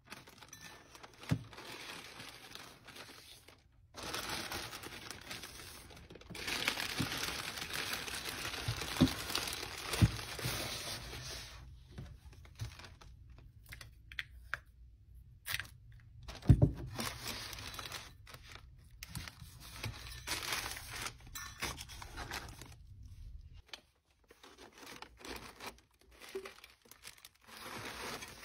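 Hand-packing sounds: pink tape pulled off a tape dispenser and torn, and tissue paper rustling and crinkling as drinkware is wrapped in a box, with a few sharp knocks.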